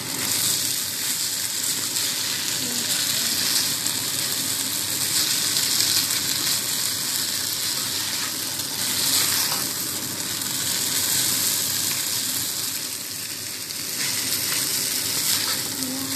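Fried rice sizzling in a pot while it is stirred and turned with a spatula: a steady frying hiss.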